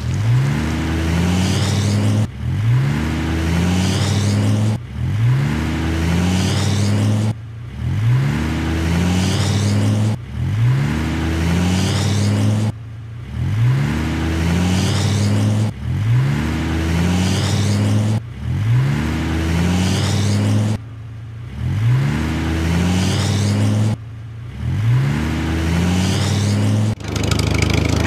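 Tractor engine sound effect revving up and then running steady, repeated as a loop roughly every two and a half to three seconds with a short abrupt break between repeats.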